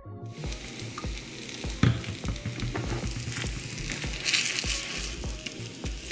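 Food sizzling in a frying pan on the stove, with a sharp knock about two seconds in, over background music with a steady beat.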